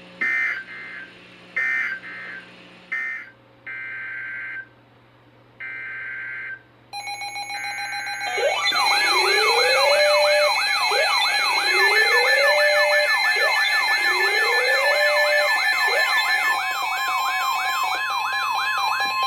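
Emergency Alert System header: a string of short, harsh two-pitch digital data bursts. About seven seconds in, a loud layered alert signal begins, a fast sweeping siren with repeated rising whoops and steady beeping tones, and a steady alarm tone joins near the end. These sounds mark the start of a tornado warning.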